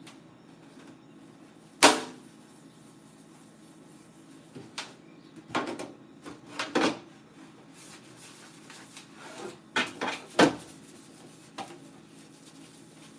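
Refrigerator drawers and shelves being handled: scattered knocks and clatters, the sharpest about two seconds in, a cluster around six to seven seconds, and two more near ten seconds.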